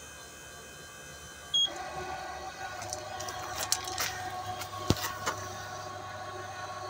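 A short high beep about one and a half seconds in, then the electric drive of a Fadiel powered swivel car seat running steadily as the seat turns and slides out through the door opening, with several clicks and a sharp knock near the five-second mark.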